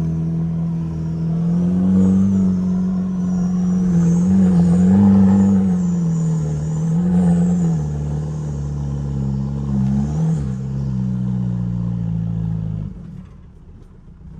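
Turbodiesel engine of a TDI-swapped Ford Ranger revving up and down as the truck is driven through soft dune sand, with a faint high whistle rising and falling along with it. The sound drops away sharply near the end.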